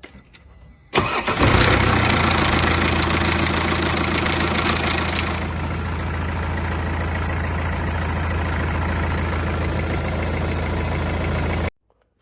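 Mercedes OM651 four-cylinder diesel engine starting about a second in and running on; its timing chain is rattling, which the mechanic puts down to a worn chain tensioner. The sound is brighter for the first few seconds and then settles a little, and it cuts off suddenly near the end.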